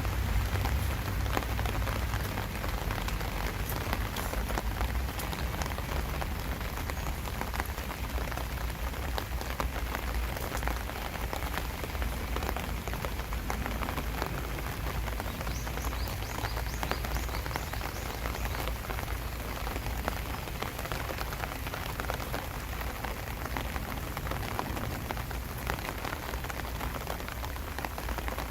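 Steady rain falling, dense with individual raindrop strikes close by, over a low rumble.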